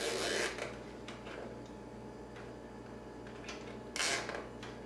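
Nylon zip ties being worked by hand: two short rasping bursts, one at the start and one about four seconds in, with a few light clicks between. A steady low hum runs underneath.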